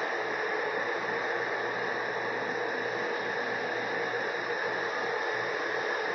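Dehumidifiers running: a steady fan rush with a constant hum, pulling water out of the air of a flood-damaged house.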